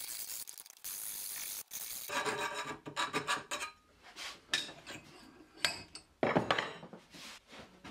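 A file rasping on the cut end of a steel tube clamped in a bench vise, deburring the edge. The strokes get shorter, with the tube ringing, and near the end a few louder metallic knocks and clatter come as the tube is handled in the vise.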